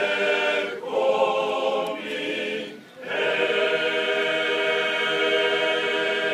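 Men's choir singing a cappella in several parts: a short phrase, a brief break about three seconds in, then one long chord held for about three seconds and cut off together near the end.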